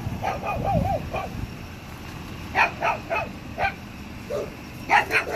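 A dog barking in short yaps, in two bunches of three or four, with a wavering whine in the first second. A low engine rumble from the Honda Acty mini truck sits under the first second.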